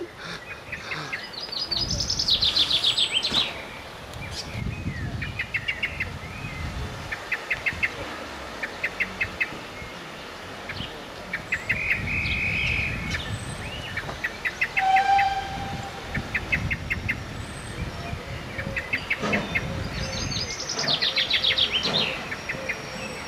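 Small birds singing: short bursts of quick chirps every second or two, and twice a fast trill sliding down in pitch. A low, uneven rumble lies underneath.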